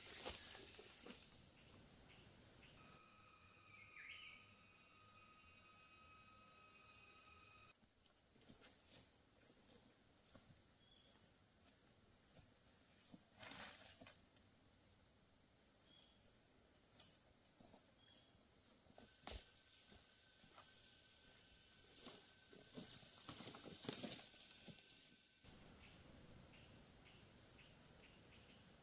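Steady high-pitched insect chorus, with a few faint knocks and clicks scattered through it.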